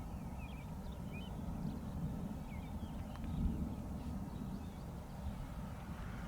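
Steady low wind rumble on the microphone, with small birds chirping on and off: short, quick high chirps scattered through.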